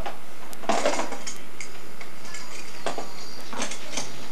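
Light clatter of hard objects being handled: a few separate sharp knocks and clicks, the busiest about a second in and more near the end.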